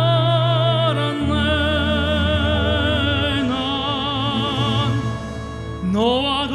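Two male classical-crossover singers singing live in an operatic style, held notes with wide vibrato, over instrumental accompaniment with a low bass line. The music eases briefly near the end before a rising phrase swells in.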